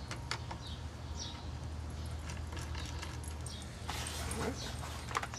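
Steady low hum of a running air conditioner unit, with faint scattered clicks of a Phillips screwdriver and rifle parts being handled as the stock bolts come out. A few short high chirps are heard.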